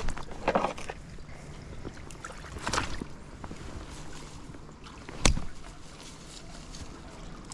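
Kenai River water running steadily, with a few splashes and one sharp knock about five seconds in, the loudest sound.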